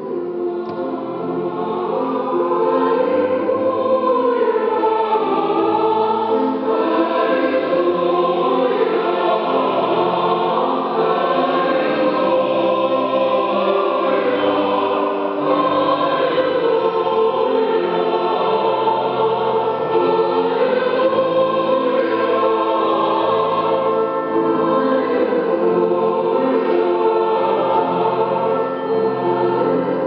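Choir singing in several parts in full voice, bass notes under the upper voices, chords held and moving together. The singing swells up over the first couple of seconds and then stays loud.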